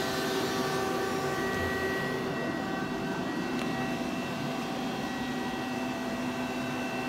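Femco Durga 25-E CNC turning center running under power: a steady mechanical whine made of several held tones. The mix of tones shifts slightly about two seconds in.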